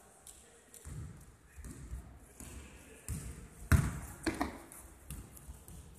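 Basketball bouncing on a sports-hall floor during play: several irregular thuds, the loudest a little past the middle.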